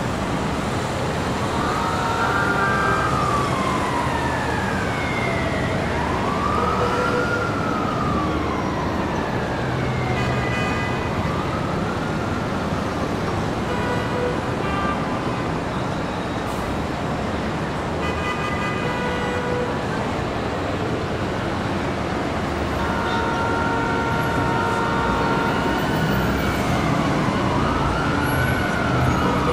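Emergency vehicle siren wailing, its pitch rising and falling slowly every few seconds, over steady city street traffic.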